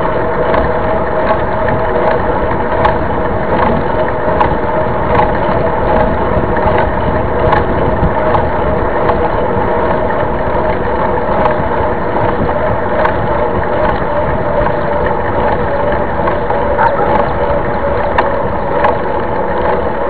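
Steady riding noise from a mountain bike on asphalt: the knobby tyre humming on the road and wind rushing over the bike-mounted camera, with scattered small clicks.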